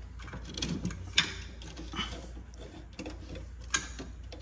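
Hands working hoses and fittings in a car's engine bay: irregular clicks, knocks and rattles, with two sharper clacks, one about a second in and one near the end.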